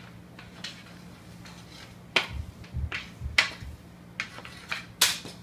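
A few sharp clacks of a hockey stick on a hard floor, spread unevenly over several seconds. The loudest come about two seconds in and again near the end, with a couple of dull low thuds in between.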